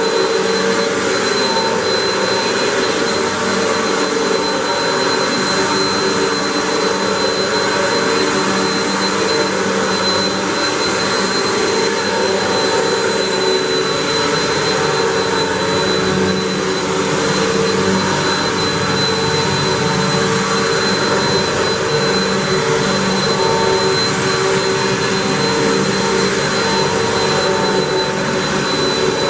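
Hoover WindTunnel 3 Pro Pet upright vacuum cleaner running steadily at full power: a rush of air with a high, constant motor whine over lower humming tones.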